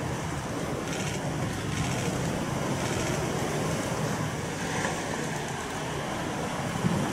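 Steady low rumbling rush of a large fire burning at a solid rocket motor test stand, where the Epsilon S motor has just exploded during a static firing. A single short knock near the end.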